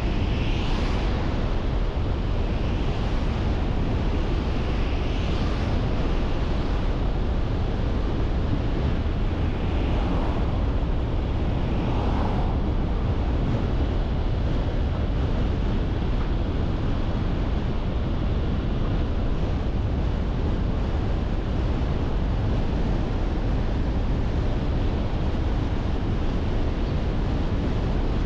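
Car driving: steady road and wind noise with a deep rumble, and wind rushing over the microphone. A few faint, short higher sounds stand out in the first dozen seconds.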